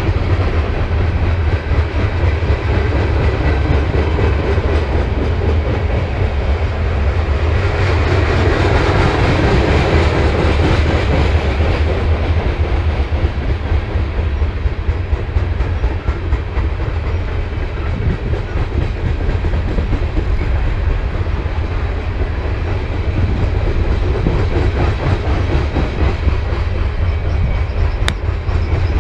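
BNSF freight train rolling past, a steady rumble of steel wheels on the rails that swells about a third of the way through.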